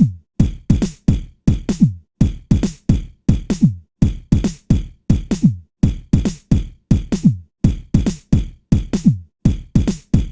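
Electronic background music: a drum-machine beat of deep kick drums, each sliding down in pitch, repeating about two to three times a second with short silences between.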